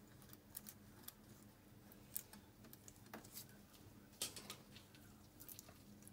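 Light, scattered clicks and small metal taps as a feeler gauge is worked between the intake rocker arm and valve stem of a 125 cc ATV engine, checking the valve clearance. A faint steady hum sits underneath.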